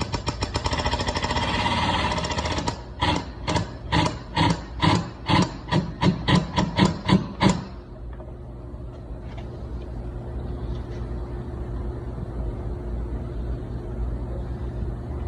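Body-repair tool work on metal: a fast rattling run of impacts for about three seconds, then about a dozen separate sharp strikes that come faster and faster and stop suddenly about halfway through. A steady low hum follows.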